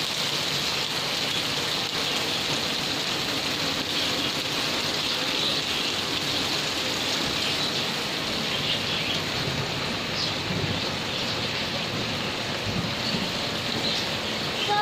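Steady rain falling on a grass lawn and garden plants.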